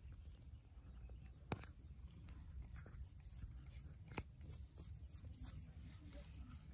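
Straight razor scraping stubble through shaving cream in short strokes on the chin and upper lip, with two sharp clicks, one about a second and a half in and one about four seconds in.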